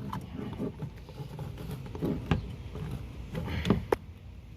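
Scattered clicks and knocks of an oil filter being worked loose by hand and tool, a few sharp knocks standing out over low handling noise.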